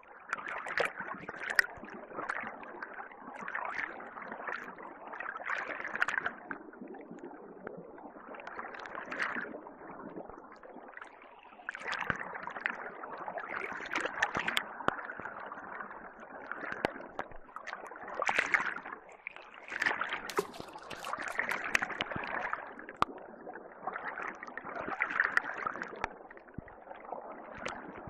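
Water sloshing and gurgling in swells about every two seconds, with small splashes and clicks.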